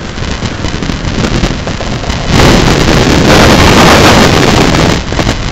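Wind buffeting the onboard camera's microphone on a sailboat under way, a steady rush that swells into a much louder gust about two seconds in and drops back near the end.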